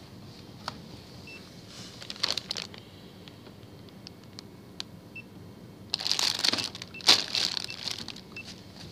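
Shop checkout sounds: several short, faint electronic beeps from the till, with scattered clicks and two bursts of rustling, the louder one about six seconds in.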